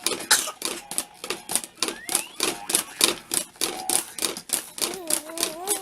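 Rapid, irregular clicking and tapping, a few sharp clicks a second, with a child's voice rising and falling briefly near the end.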